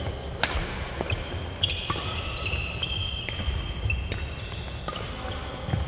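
Badminton rally on an indoor wooden court: a series of sharp racket strikes on the shuttlecock, with sneakers squeaking on the floor as the players move.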